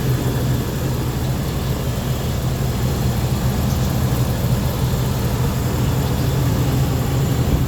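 1995 Range Rover P38's V8 engine idling steadily under the open bonnet, a constant low hum.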